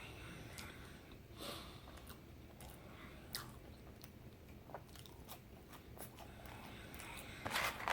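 A man chewing a mouthful of fried chicken sandwich close to the microphone: faint mouth sounds and small clicks, with a louder smack near the end.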